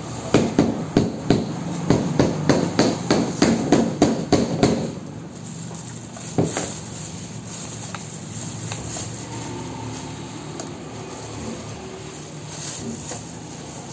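A quick run of about a dozen sharp knocks, roughly three a second, stopping about five seconds in, then one more single knock. After that, a faint steady hum.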